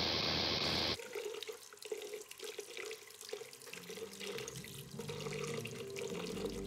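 A loud burst of static hiss cuts off about a second in, giving way to water running from a tap into a sink, splashing unevenly.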